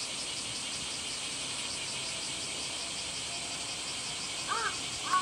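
Steady, high, pulsing shrill of an insect chorus. About four and a half seconds in, a crow caws twice, the second caw the loudest sound.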